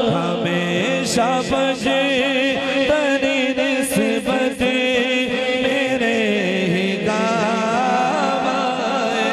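A man's voice singing a devotional manqabat in Punjabi/Urdu, unaccompanied, into a handheld microphone. He holds long, drawn-out notes with a wavering, ornamented melody.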